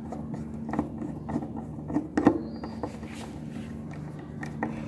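Screwdriver turning a small locking set screw into the metal button clamp of a Juki button-sewing machine: light metal clicks and scrapes, loudest about two seconds in, over a steady low hum.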